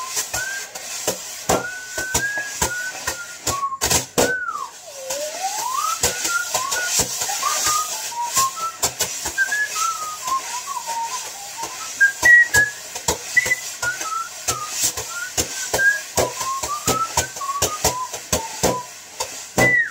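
A person whistling a melody of short sliding notes, with a long swoop down and back up about five seconds in. Quick clicks of a table knife and fork struck together keep time alongside the whistling.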